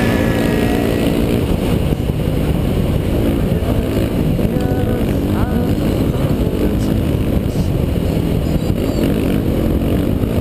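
Dirt bike engine running hard at speed, its pitch rising and falling with the throttle, over a heavy low rumble. A music track fades out in the first second.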